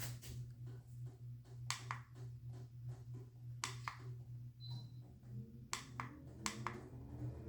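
Sharp clicks of a wall thermostat's buttons being pressed, with one short high beep a little past the middle, over a steady low electrical hum. In the last couple of seconds a motor hum starts and rises steadily in pitch, as an air conditioner switches on in cool mode.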